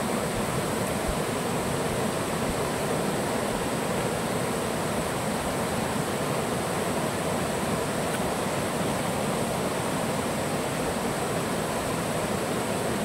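River water rushing steadily, an even, unbroken noise.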